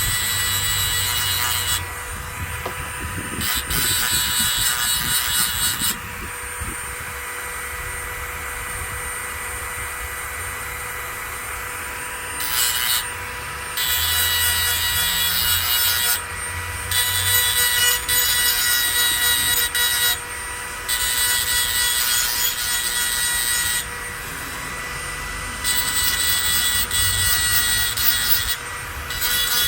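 Hedge trimmer blade teeth being sharpened, metal rasping against metal in passes of a few seconds with short pauses between, over a steady high whine.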